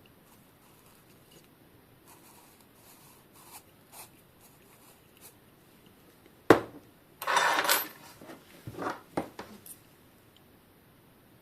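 Hard objects being handled: a sharp click, then a short scraping rattle and a few light knocks. No motor is running.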